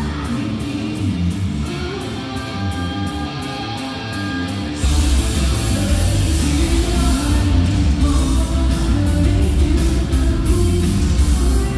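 Live rock band with a female lead singer, electric guitar and drum kit. The singing starts over a quieter, thinner backing. About five seconds in, the full band comes in heavily with drums and low end, and the music gets louder.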